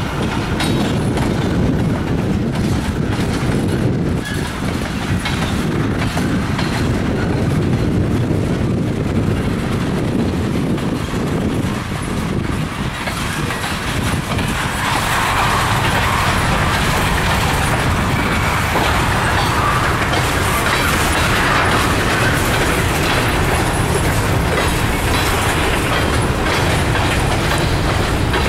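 Freight cars (tank cars, then covered hoppers) rolling past, with steel wheels clacking over the rail joints over a steady rumble. About halfway through, the rolling noise turns brighter and a little louder.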